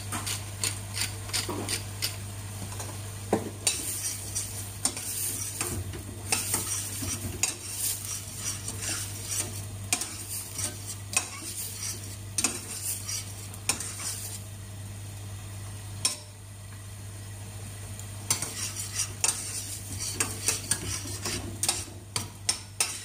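A metal utensil stirring a corn mixture in a stainless steel saucepan, with repeated clinks and scrapes against the pot's sides and bottom. It eases off for a few seconds just past the middle, then the clinking picks up again.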